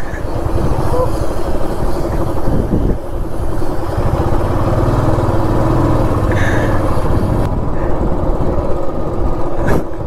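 Motorcycle running on the road, with a steady low engine rumble that swells for a few seconds around the middle.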